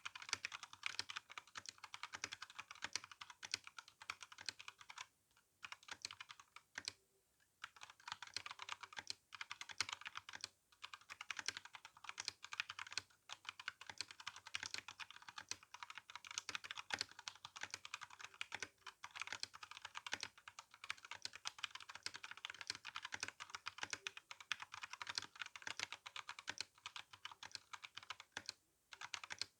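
Fast continuous typing on an RK61 mechanical keyboard with brown tactile switches and GSA keycaps: a dense patter of key clacks, broken by short pauses a few times.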